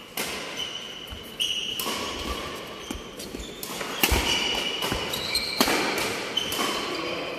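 Badminton rally: sharp racket strokes on the shuttlecock, the hardest about four seconds in, with short high squeaks of shoes on the court mat between them.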